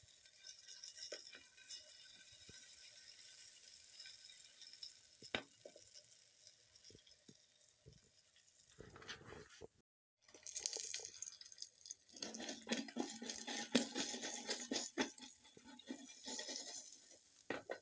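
Floured pieces of food frying in hot oil in a metal pot. A steady sizzle gives way, after a short break about ten seconds in, to loud, dense crackling and popping.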